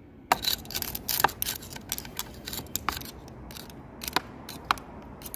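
Irregular sharp metallic clicks as a screwdriver pries the small steel balls out of a rusted ball bearing from a Ford F150 electric power steering rack, the balls dropping into a plastic tray.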